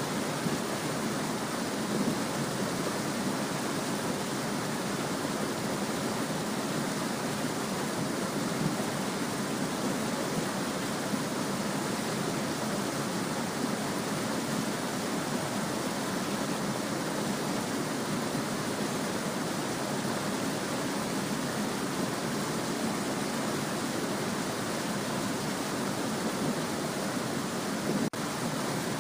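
Small stream babbling steadily, an even rush of flowing water. It briefly dips near the end.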